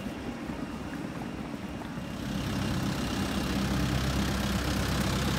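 Hyundai minibus engine idling steadily. It grows louder about two seconds in as it is approached, over the rattle of suitcase wheels rolling on paving stones.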